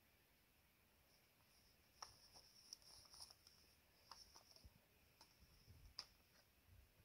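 Near silence, with a few faint crunches and clicks from about two seconds in: footsteps in snow.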